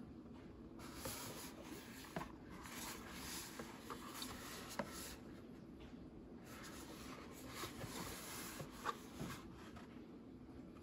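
Hands rubbing and sliding over a cardboard gift box, a faint scratchy rustle in two stretches of a few seconds each, with a few light ticks.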